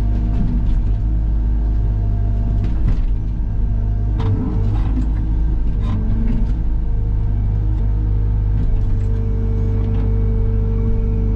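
Diesel engine of a piece of heavy land-clearing equipment running steadily, with a few sharp cracks and knocks about three to six and a half seconds in.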